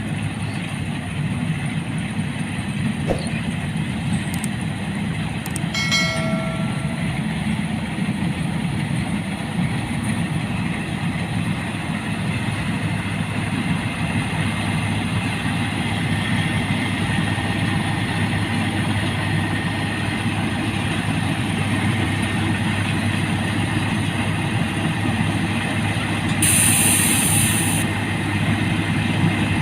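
Rice combine harvester running steadily, its engine and machinery making a continuous low drone. A short pitched beep sounds about six seconds in, and a brief hiss comes near the end.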